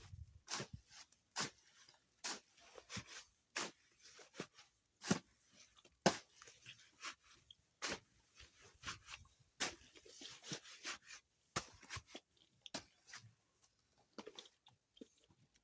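Repeated irregular crunching and scraping strokes, about one or two a second, of a hand tool working a gritty sand and cement mix.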